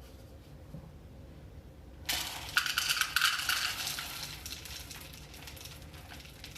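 Chocolate chips poured into a plastic microwave pressure cooker pot: a dense rush of small clicks that starts about two seconds in and trails off over the next few seconds.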